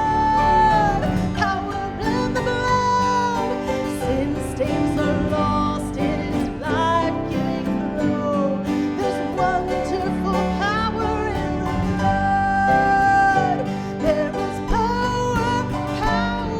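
Church worship music played by a band: guitar and other instruments under a melody line of long held notes.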